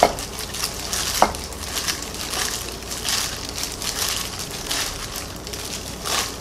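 Gloved hands tossing dressed shredded chicken, cucumber and imitation crab in a glass bowl: irregular wet squishing and the crinkle of thin plastic gloves, with a light knock about a second in.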